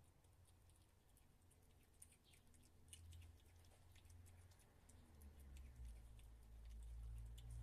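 Near silence: faint scattered soft ticks and clicks, with a low rumble swelling near the end.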